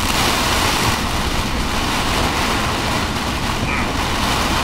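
Torrential rain beating on a moving vehicle's roof and windshield, heard from inside the vehicle over road noise: a steady, loud hiss.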